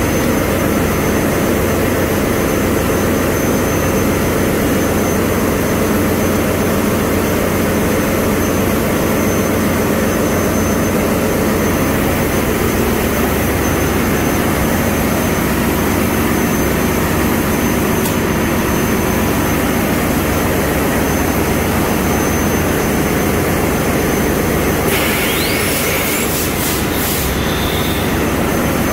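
Loud, steady din of a ship's engine room, from machinery that is already running. A few clicks and a short rising whine come near the end.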